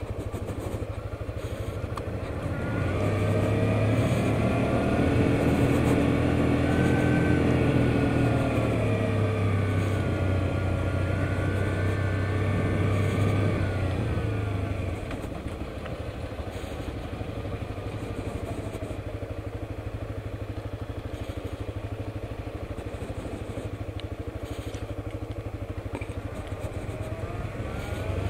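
Suzuki GSX-S125's single-cylinder four-stroke engine running as the motorcycle is ridden. The revs climb about three seconds in and swing up and down while loud until about fourteen seconds, then drop to a lower, quieter steady note for the rest.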